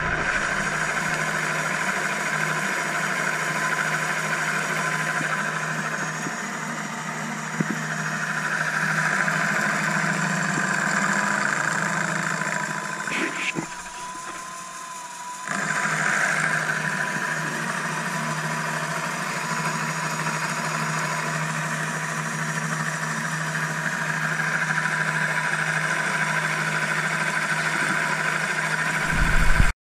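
Workshop machine tool's electric motor running steadily at a constant pitch, with a quieter stretch of about two seconds midway before it picks up again.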